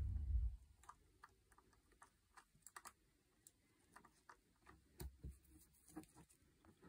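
Faint, scattered clicks and taps of a metal Cobra buckle being handled as nylon chinstrap webbing is pushed through its slot, a tight fit, with a few louder knocks about five seconds in.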